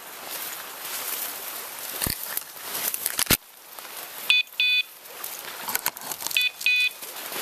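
Bird dog's beeper collar in point mode: two quick high beeps repeating about every two seconds, starting a little past the middle, the sign that the Brittany has stopped on point. Before the beeps, rustling through cover with a couple of sharp snaps.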